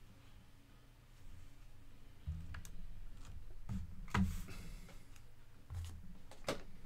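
Scattered clicks and taps at a computer keyboard and mouse, a few sharper ones about two and a half, four and six and a half seconds in, over a low steady hum.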